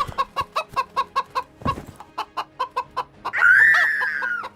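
Chickens clucking rapidly, about five clucks a second, then one loud drawn-out call of about a second near the end.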